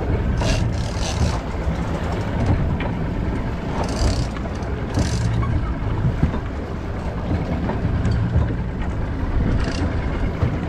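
Sport-fishing boat's engine running steadily, a continuous low hum, with short rushes of hiss a few times.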